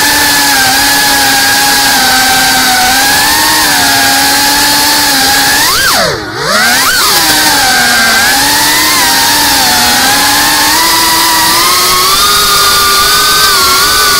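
GEPRC Cinelog 35 FPV drone's brushless motors and propellers whining steadily, heard through the onboard camera. About six seconds in, the pitch drops sharply and the sound briefly fades as the throttle is chopped, then sweeps back up as power returns. The pitch climbs a little toward the end.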